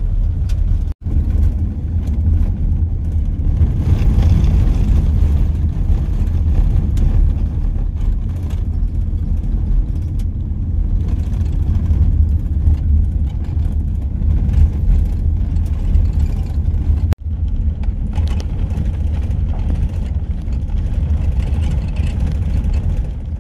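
Steady low rumble of a pickup truck driving, with engine and road noise heard from inside the cab. The sound drops out briefly twice, about a second in and again around seventeen seconds.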